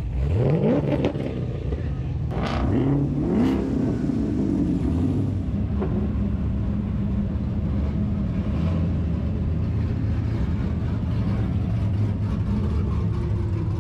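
Car engines revving briefly twice, each rev rising in pitch, in the first few seconds, then a steady low engine rumble as a late fourth-generation Pontiac Firebird Trans Am rolls slowly past.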